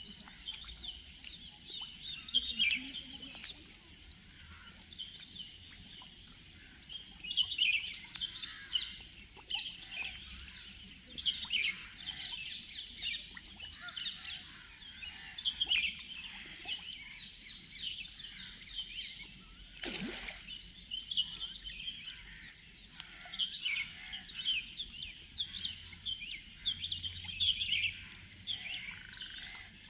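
Many small birds chirping and twittering in busy, overlapping bouts, over a steady faint high hiss. One brief knock stands out about two-thirds of the way through.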